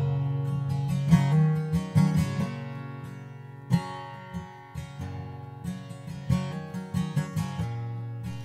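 Background acoustic guitar music, a run of plucked notes.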